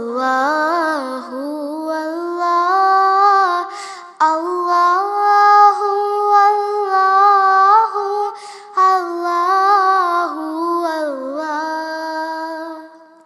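Naat (devotional song in praise of the Prophet) sung by a high solo voice: long held, wavering notes in three phrases, dying away near the end.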